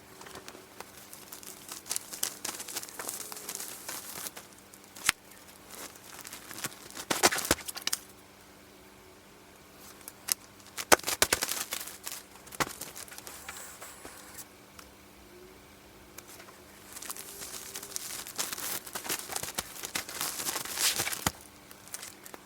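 Compostable mailer bags crinkling and rustling as folded T-shirts are packed into them, with sharp clicks and taps here and there. The handling comes and goes, with a couple of short quieter pauses.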